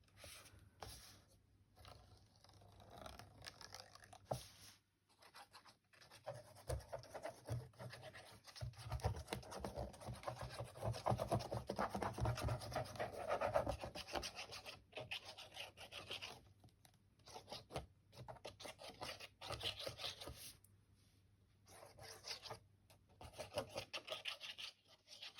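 Irregular rubbing and scratching of hands and tools on paper and fabric while the back of a fabric-covered binder is glued down, busiest in the middle with quieter gaps near the start and end.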